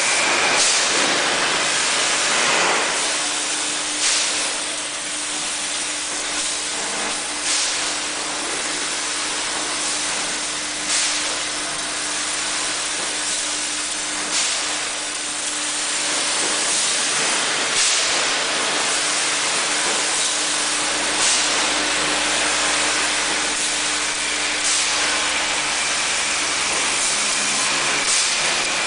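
Bottling-line machinery for 6-litre PET bottles running: a steady hissing din with short, sharp hissing bursts every few seconds. A steady hum comes in about three seconds in.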